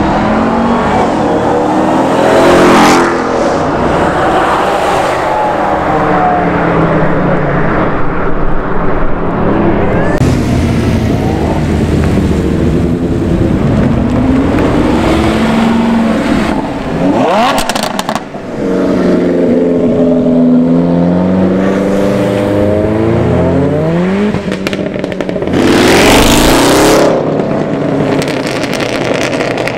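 Several car engines revving and accelerating one after another as cars pull away, their pitch rising and falling with each rev, with three short, very loud bursts along the way, the last and loudest near the end.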